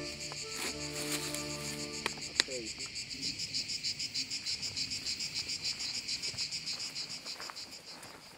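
Field crickets chirping in a steady rhythm of about five pulses a second, starting about two and a half seconds in and fading near the end. Before that a steady droning tone with several pitches runs and is cut off by a sharp click.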